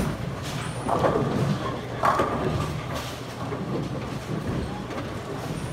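Bowling alley din: a low rolling rumble with sharp knocks and clatter from the lanes, the loudest knock about two seconds in.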